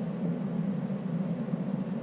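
Electric heater for a 3D printer enclosure running with a steady low whir.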